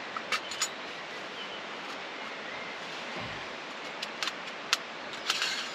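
Trangia camping stove kit being handled: a few short sharp clicks and clinks near the start and a cluster in the last two seconds, over a steady outdoor hiss.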